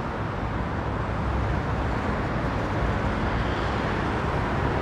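Steady city street ambience: a low rumble of traffic, growing a little louder after about a second.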